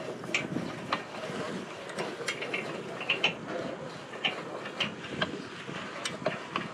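Steel chain and hook on a boat trailer's bow being worked loose by hand: irregular light metallic clicks and chain rattles over a steady background hiss.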